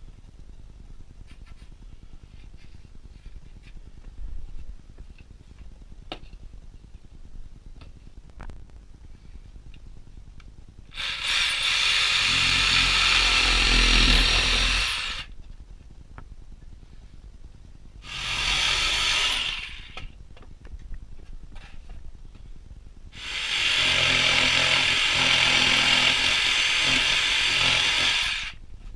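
Cordless jigsaw cutting a board in three runs, the motor whining over a rasping saw stroke: a run of about four seconds, a short two-second run, then about five seconds, with small handling knocks in the pauses.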